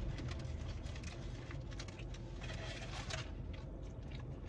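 Eating sounds: chewing and scattered small clicks and rustles of handled takeout food and its packaging, over a low steady hum.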